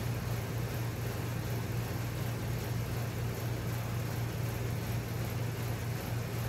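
Steady low hum with an even hiss over it, unchanging throughout: background noise, with no speech.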